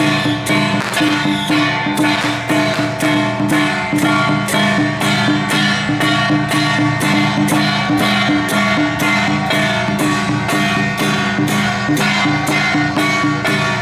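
Music with a steady percussive beat over sustained pitched tones.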